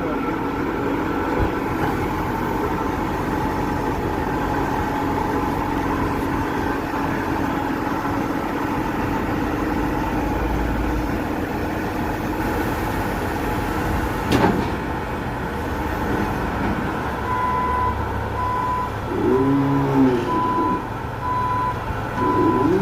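Delivery truck's engine running steadily, with one knock partway through; in the last quarter its reversing alarm starts beeping about once a second.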